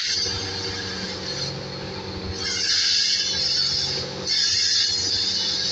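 Oxy-fuel cutting torch cutting steel, its jet hissing loudly in three bursts with short gaps between. A steady low engine hum runs underneath.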